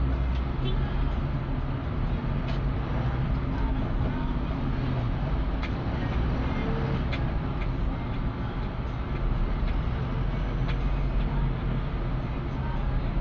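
Engine and road noise of a vehicle driving, a steady low rumble with a few light clicks.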